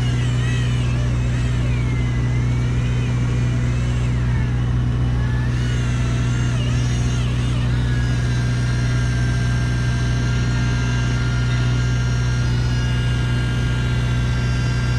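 Fishing boat's engine running with a steady low drone. Over it comes a high whine from a Shimano Plemio 3000 electric reel winding line: it wavers in pitch for the first several seconds, then holds one steady pitch from about halfway and cuts off at the very end.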